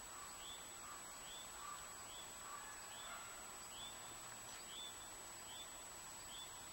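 A bird repeating a short high call that rises and falls, a little more often than once a second, over faint outdoor background noise, with a thin steady high whine behind it.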